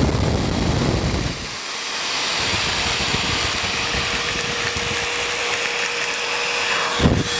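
Sinbo electric vacuum cleaner running steadily: a continuous airy whoosh of suction with a steady hum. A rougher, louder rumble comes in the first second or so, and there is a short knock near the end.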